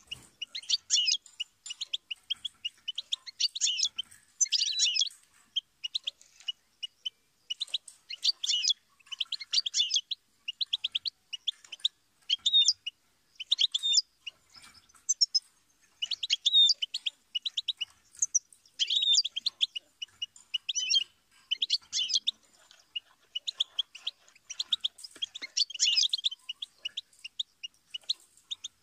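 European goldfinch singing: rapid, high-pitched twittering phrases of quick trills and chattering notes, each a second or two long with short pauses between.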